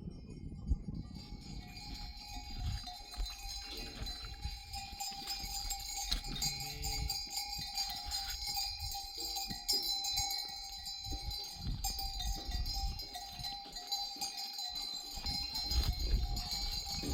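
Bells on a herd of goats and sheep clinking and ringing steadily, with an animal bleating a few times.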